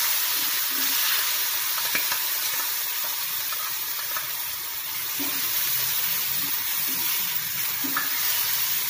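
Sprouted fenugreek, onion and ground spice paste sizzling steadily in hot oil in a kadai, stirred with a steel spatula that scrapes against the pan now and then.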